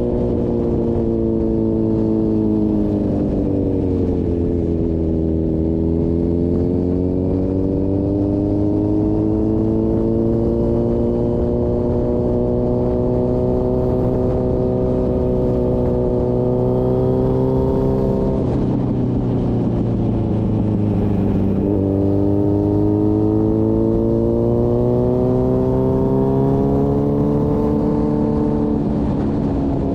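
Motorcycle engine running at road speed, its pitch sinking and rising slowly with the throttle, with a short drop and climb about two-thirds of the way through.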